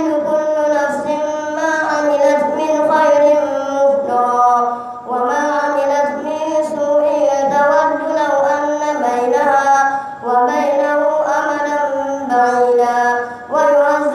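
A boy's high voice reciting the Quran aloud in a melodic chant, long phrases held and ornamented, with short pauses for breath a few times.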